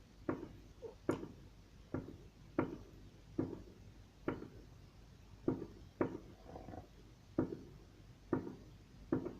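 Footsteps in a small room, about eleven steps at an even walking pace, with a short pause about halfway.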